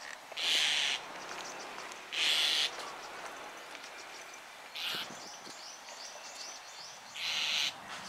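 White-cheeked starling giving harsh, grating calls with a lizard held in its bill: four calls about two seconds apart, each roughly half a second long, the third one shorter.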